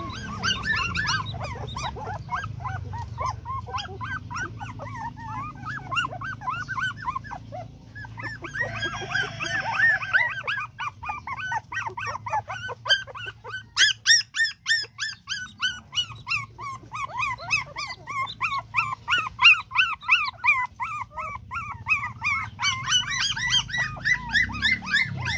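Puppies whimpering in rapid, high-pitched squeals, several a second, with a short lull about ten seconds in.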